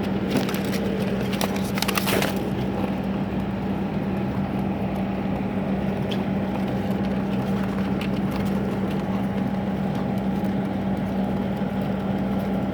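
A steady mechanical hum, with a few short, sharp sounds in the first couple of seconds and once more about six seconds in.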